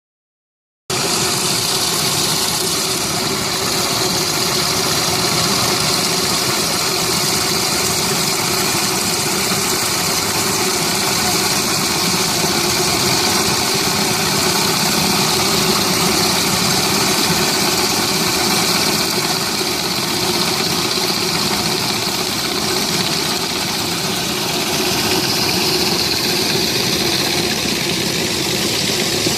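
Pressure washer running steadily: the engine drone with the hiss of high-pressure water spraying from a push surface cleaner. It comes in abruptly about a second in.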